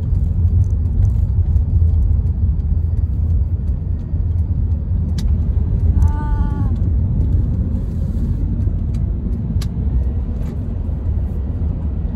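Steady low rumble of road and engine noise inside a moving car's cabin. A short pitched sound comes about halfway through, and a few faint clicks.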